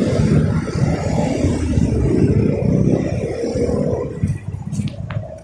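Road traffic noise heard from a motorcycle at a city intersection: motorcycle and car engines running around the rider, loud and uneven, easing off in the last second or so.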